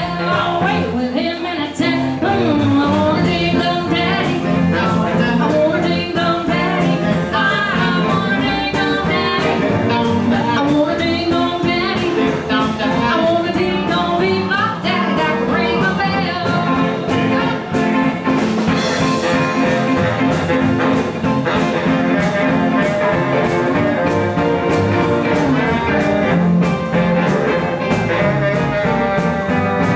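Live blues band playing with a steady beat: electric guitar, acoustic guitar, saxophone and drum kit.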